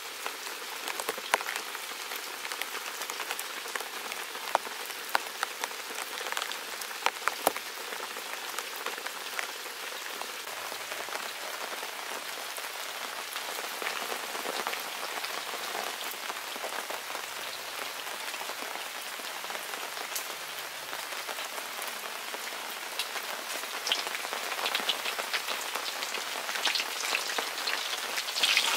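Steady rain pattering on a surface, with scattered sharp drops. Near the end a louder sizzle of cobia steaks frying in oil comes in.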